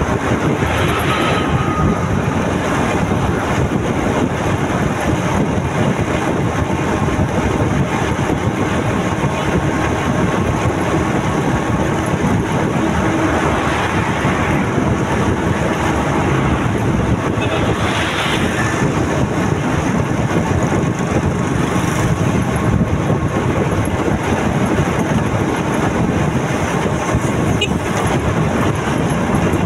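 Steady rush of wind and road noise from a moving motorcycle, with three brief swells along the way.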